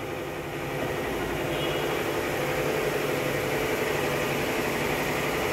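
Toyota Calya's 1.2-litre four-cylinder engine idling, heard from inside the cabin as a steady hum that grows slightly louder about a second in.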